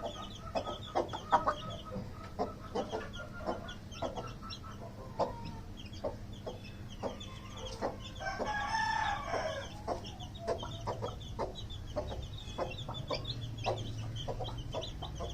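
Chickens: chicks peeping in rapid high chirps among short clucks, with one louder, drawn-out call a little past the middle.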